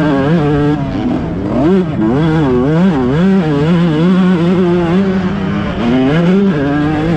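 Dirt bike engine under riding load, the revs rising and falling again and again as the throttle is worked over rollers, then holding steady for a stretch before climbing again near the end.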